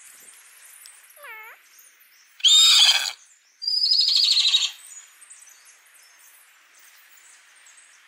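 Pony whinnying: two loud calls in quick succession, the second falling in pitch with a quaver, after a fainter short call about a second in.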